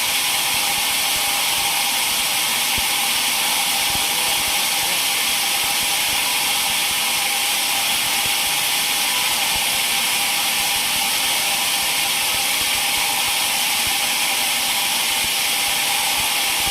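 Sawmill saw running steadily, a constant hiss with a steady whine through it.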